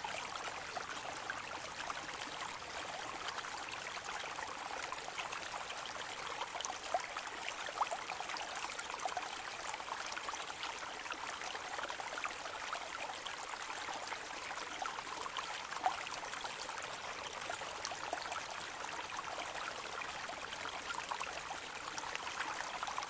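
A steady, even rushing sound like running water, sprinkled with faint small ticks.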